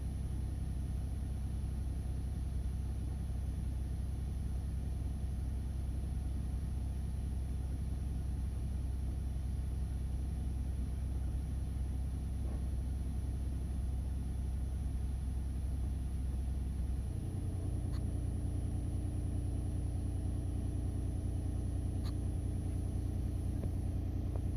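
Nissan Note e-POWER's 1.2-litre three-cylinder petrol engine idling after a start, a steady low hum; about 17 seconds in its tone steps up to a higher pitch and holds there.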